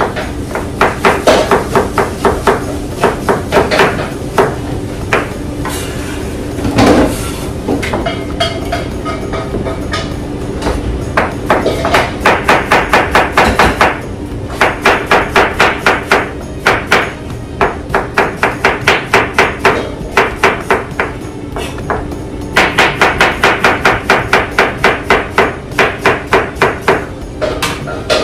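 Knife chopping fast on a cutting board, in runs of quick even strokes about five a second with short pauses between them, over a steady hum.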